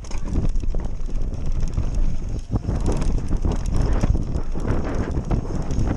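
Nukeproof mountain bike ridden fast down a dirt trail: a steady rumble of tyres on the ground, the bike clattering with many quick knocks over bumps, and wind buffeting the microphone.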